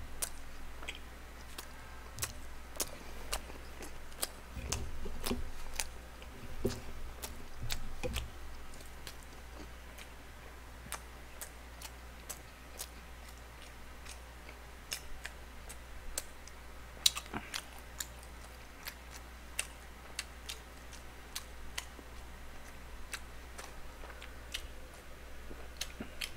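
Close-miked chewing of a fish cake with rice cake inside, a dense, hard-to-swallow mouthful, with many sharp wet mouth clicks and a few low thumps about five to eight seconds in.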